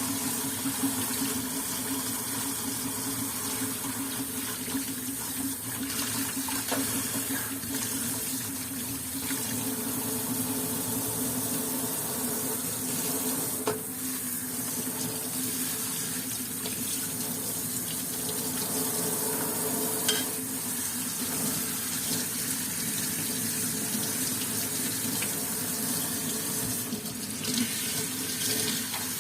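Tap water running steadily into a sink while washed plastic parts are drained and rinsed, with a couple of small knocks.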